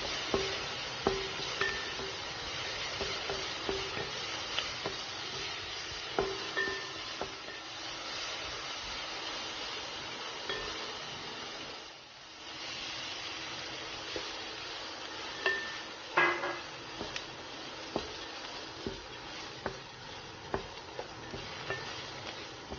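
Diced onion and bell pepper sizzling in oil in a frying pan, stirred with a wooden spatula that scrapes and knocks against the pan. The sizzle dips briefly about halfway, and the stirring goes on with raw rice in the pan, with a burst of knocks a few seconds after the dip.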